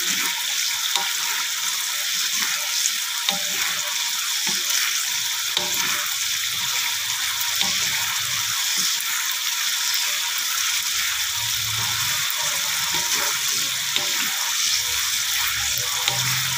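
Balado chili paste frying in oil in a wok with a steady sizzle. It is being stirred with a wooden spatula that scrapes and taps against the pan now and then.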